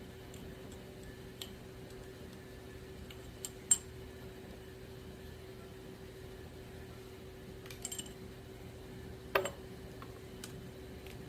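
Metal tools and small steel parts clinking a handful of times during lathe headstock teardown, sharpest about four seconds in and again near the end, over a steady low hum.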